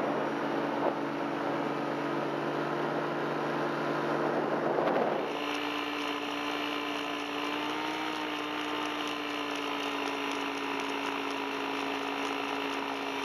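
Two-seat paramotor's engine and propeller running steadily in flight, with a rush of wind; about five seconds in the engine note changes abruptly to a slightly different steady pitch.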